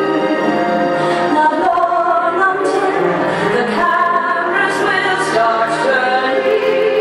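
Music with a woman singing a dramatic, operatic-style melody over orchestral backing.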